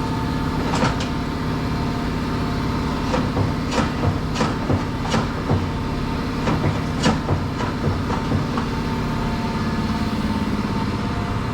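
A vehicle engine running steadily, with irregular knocks and rattles over it, a dozen or so in the first nine seconds.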